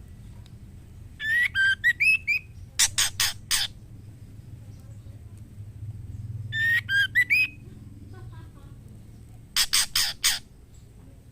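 Female white-rumped shama calling: a short phrase of rising whistled notes, then four quick harsh notes. The pattern comes twice. It is the female's call to a male, given when she is ready to breed.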